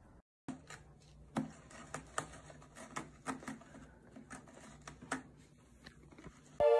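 A string of light, irregular taps and clicks, about a dozen, over a faint low hum. Keyboard music starts abruptly near the end.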